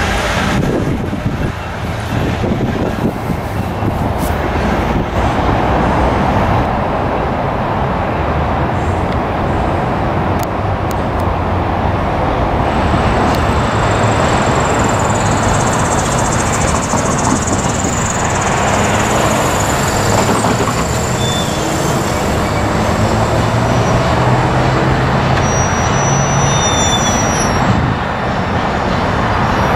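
Steady rumble of vehicle and rail traffic beside a railway line, with no single clear event and a brief thin high tone near the end.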